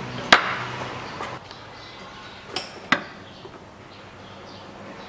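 Sharp metal-on-metal clicks and knocks of a tool working the steering rack's pressure cup (yoke) loose from its bore in the rack housing: one loud knock about a third of a second in, then two lighter ones close together near the three-second mark.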